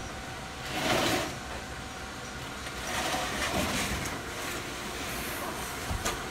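Sheets of gypsum drywall being handled: noisy scraping and sliding swells about a second in and again around three seconds, and a short knock near the end as a board bumps against the others.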